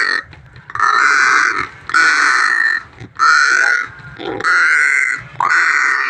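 Crow giving a run of harsh, raspy calls, about five in a row, each lasting most of a second with short breaks between.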